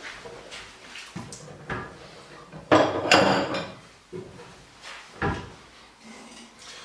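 Kitchen wall cupboard being opened and a bowl taken out: a burst of crockery clattering about three seconds in, then a single thump a couple of seconds later, among lighter knocks.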